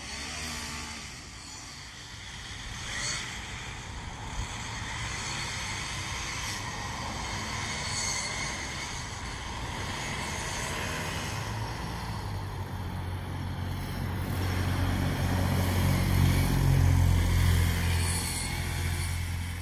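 A motor vehicle's low engine rumble that builds through the second half, is loudest a few seconds before the end, then starts to fade, over a steady outdoor hiss.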